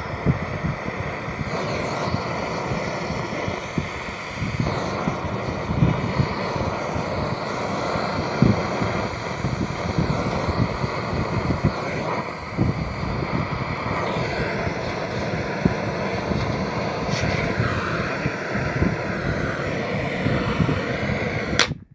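Gas cutting torch flame blowing steadily against a steel plate while it melts broken black glass into a bead, with scattered crackles. The sound cuts off abruptly near the end.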